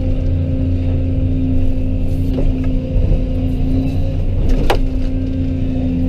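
Excavator's diesel engine running steadily with a low drone, and a single sharp knock about three-quarters of the way through.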